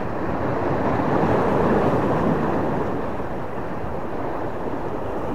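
Wind rushing across the microphone over sea waves washing against a breakwater. The rush swells about a second in and eases again by three seconds.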